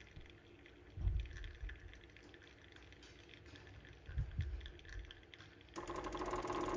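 Gaggia espresso machine's vibratory pump starting up about six seconds in and buzzing steadily as the shot continues, after a quiet stretch with a couple of soft low thumps.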